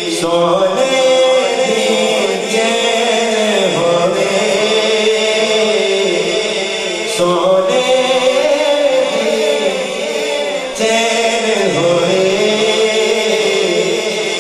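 A man's solo voice chanting a naat, an Urdu devotional poem in praise of the Prophet, sung into a microphone in long melodic phrases.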